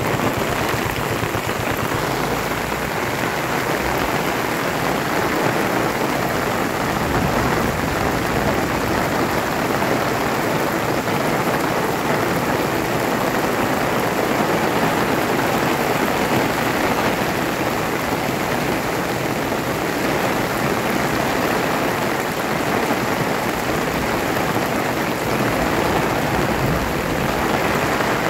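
Heavy rain pouring steadily, an even hiss of drops that neither builds nor eases.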